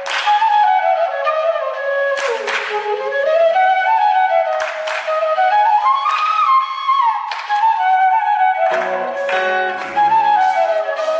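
Background music: a wind-instrument melody gliding up and down between notes over repeated short strokes, with lower sustained notes coming in about nine seconds in.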